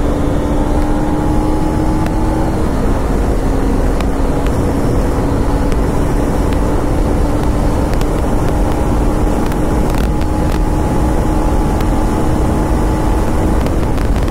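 KTM Duke 250 single-cylinder engine pulling hard at high speed through its stock, muffled exhaust, under heavy wind rush over the microphone. The engine pitch drops once at an upshift about three seconds in, then climbs slowly as the bike gains speed.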